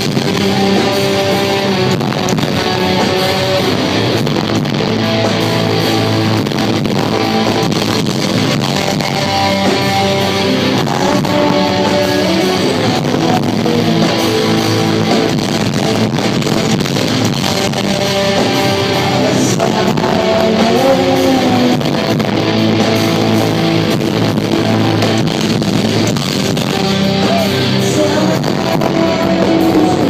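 Live alternative metal band playing loud in a concert hall: electric guitars, bass and drums together, heard from the crowd.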